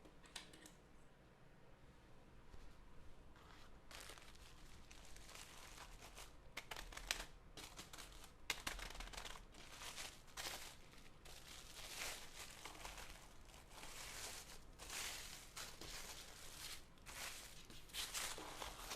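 Packaging wrap being crinkled and torn as a keyboard is unpacked. It comes in faintly after a few quiet seconds as rustling and crackling, with a couple of sharper snaps midway.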